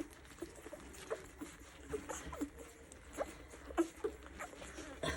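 A litter of ten-day-old Old English Sheepdog puppies nursing: many small, short squeaks and suckling and swallowing noises, several a second, overlapping from different pups.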